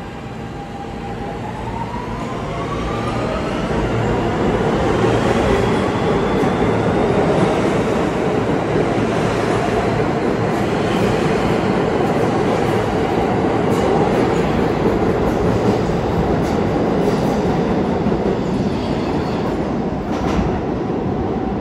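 An R160B subway train pulling out of the station. The traction motors whine and rise in pitch as it accelerates over the first few seconds, then the cars run past with a loud, steady rumble of wheels on rail and a few clacks.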